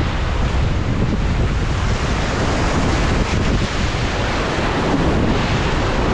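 Rushing whitewater of a river rapid, a steady loud roar of churning water, with wind buffeting the microphone.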